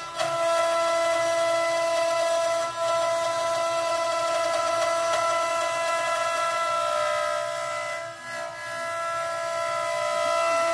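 Spindle of a 4-axis CNC wood router carving a log turning in its rotary axis: a steady high-pitched whine over the hiss of the bit cutting wood, dipping briefly twice.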